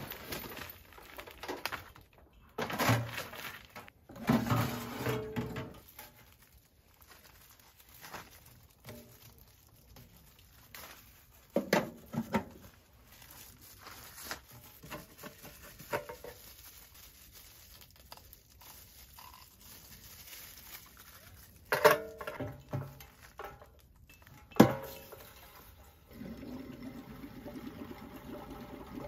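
Clatter and rustling of a kerosene fan heater, its fuel tank and thin plastic gloves being handled, with two sharp knocks about two-thirds of the way through. For the last few seconds, kerosene trickles steadily from a plastic jerry can into the fuel tank of a Paseco Camp 5000 fan heater.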